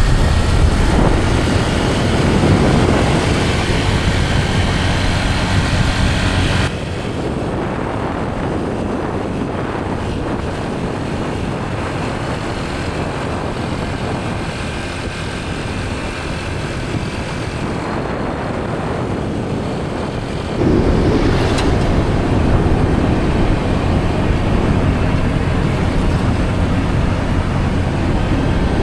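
Vehicle noise while riding along a road: a running motor with rushing road noise. The sound drops abruptly about seven seconds in and comes back up loudly about twenty-one seconds in.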